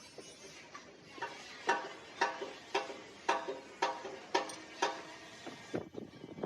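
Regular metal-on-metal hammer blows, about two a second, each sharp strike leaving a short metallic ring.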